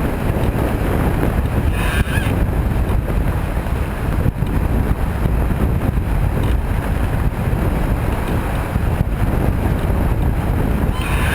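Wind buffeting the microphone over the rush of water along the hull of a Mini 6.5 sailboat reaching fast in gusty wind, with short splashes about two seconds in and again near the end.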